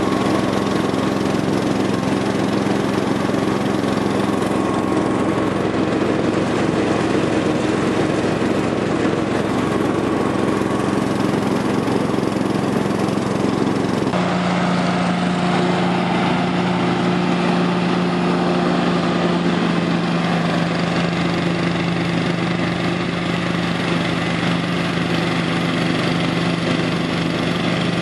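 Case IH ride-on lawn tractor running steadily while mowing grass, a continuous engine hum. About halfway through, the engine note changes abruptly to a slightly lower, smoother hum.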